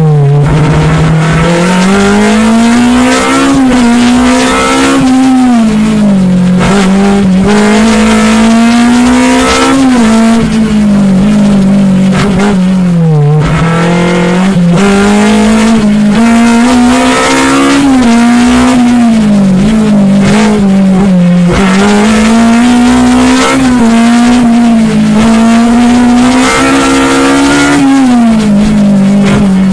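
Fiat X1/9's four-cylinder engine, heard from inside the cabin, revving up and dropping back every few seconds under hard driving.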